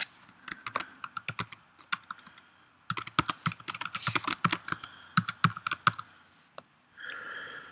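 Typing on a computer keyboard: a few scattered keystrokes, then a quick run of keys lasting about three seconds. A brief hiss follows near the end.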